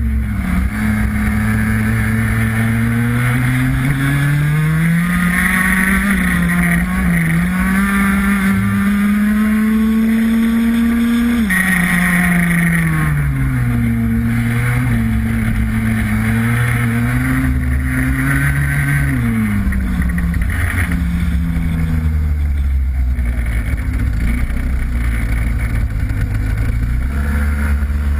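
Racing kart engine heard onboard, its revs climbing along the straights and dropping sharply when the driver lifts for corners, twice in turn. For the last several seconds it settles to steady low revs as the kart slows.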